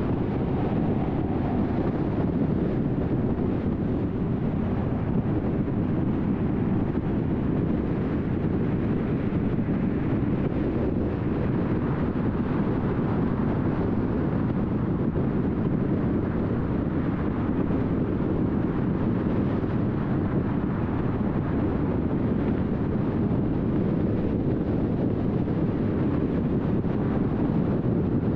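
Car cruising at freeway speed: a steady rush of tyre and road noise with some wind, even and unchanging throughout.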